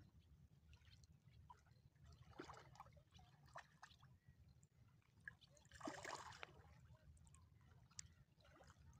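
Faint water splashing and trickling as hands work in the shallows landing a fish, with a brief, slightly louder splash about six seconds in.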